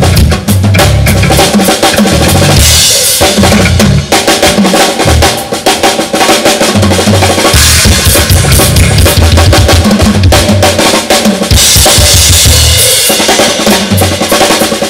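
Live blues-rock band playing an instrumental passage, the drum kit to the fore with kick drum, snare and cymbals, over bass and guitar.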